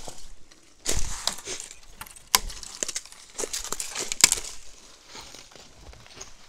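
Footsteps crunching through dry leaf litter and fallen sticks, with twigs and branches brushing and snapping as a person forces a way through dense scrub. Irregular sharp cracks, the loudest about one, two and a half and four seconds in; it goes quieter near the end.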